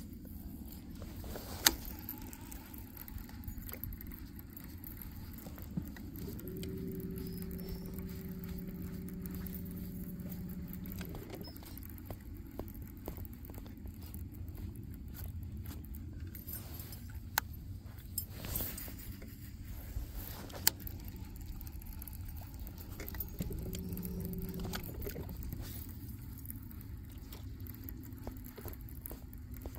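Ambience on a fishing boat: a low steady rumble, with a motor hum that runs for about four seconds starting some six seconds in and again briefly later, and a few sharp clicks and knocks of gear, the loudest near the start.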